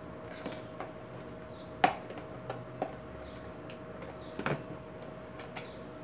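Scattered clicks and knocks of an Arge electric fan's plastic parts being handled and fitted together during reassembly, the two loudest about two seconds in and about four and a half seconds in.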